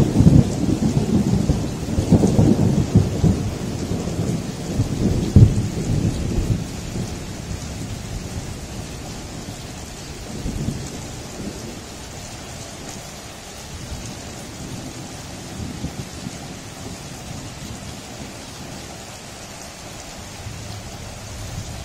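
Thunder rolling and dying away over the first several seconds, with a louder crack about five seconds in, over steady rain. A fainter rumble comes about ten seconds in, and then steady rain continues alone.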